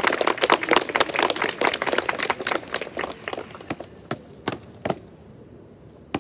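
Clapping and cheering that thin out after about three seconds into a few separate claps or stamps.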